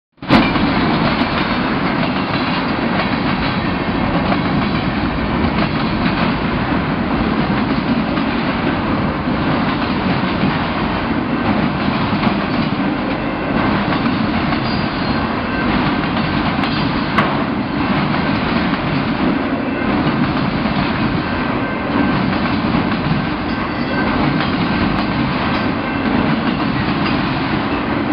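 Freight train cars rolling past: a steady rumble and rattle of steel wheels on the rails, with one sharp clank a little past halfway.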